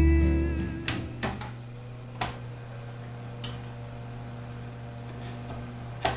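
Built-in electric oven being set to preheat: about five sharp clicks from its rotary control knobs over the steady low hum of the running oven.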